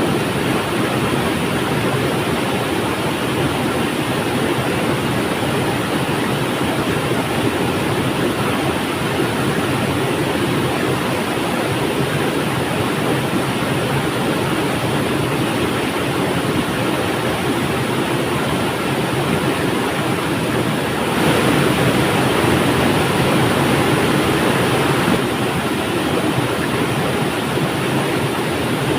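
River water flowing, a steady rushing with no breaks, swelling a little louder for a few seconds about two-thirds of the way through.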